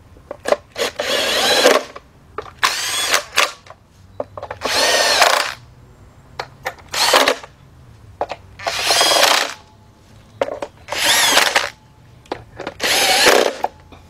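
Cordless power tool running engine bolts down tight in about seven short runs of roughly a second each, with brief trigger taps between them. Its motor pitch wavers up and down within each run.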